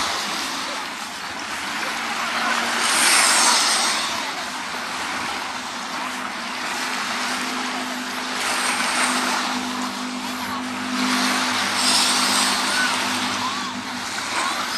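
Waves washing in on a sandy beach in surges every few seconds, with the steady hum of a motor engine underneath from about two seconds in until near the end.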